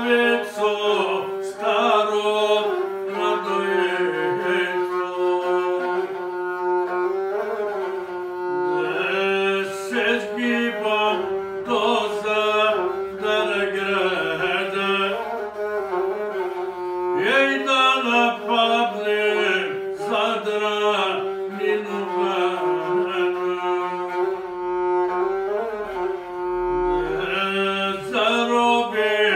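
Gusle, the single-string bowed folk instrument, played with a bow and accompanying a man singing an epic song in the guslar style, in long phrases with a few short breaks between them.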